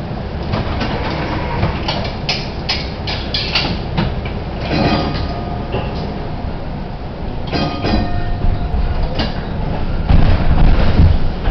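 PCC streetcar HTM 1329 rolling slowly on track: a steady low rumble with wheels clicking and clacking over the rail, two brief squeals about five and eight seconds in, and the rumble growing louder near the end.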